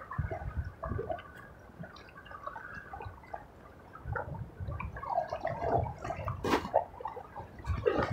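Small choppy waves lapping and splashing at a rocky shoreline, with a few sharp knocks, the loudest near the end.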